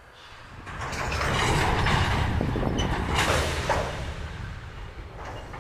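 Loaded freight hopper cars of a gravel train rolling slowly on the rails: a rumbling, grinding steel-wheel noise with a few metallic clanks that swells about a second in and fades after about four seconds.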